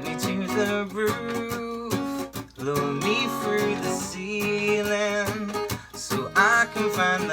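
A strummed acoustic string instrument playing the instrumental introduction of a song, chords and plucked notes changing every fraction of a second.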